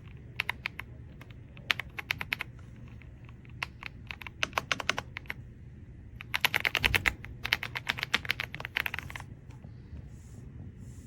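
Typing on an AULA F108 Pro wireless mechanical keyboard: keys clacking in short bursts, with the fastest, densest run of keystrokes from about six to nine seconds in.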